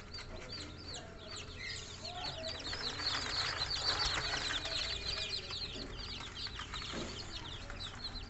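A brood of newly hatched bantam chicks peeping continuously: many short, high chirps that fall in pitch, growing busier and louder about three to four seconds in.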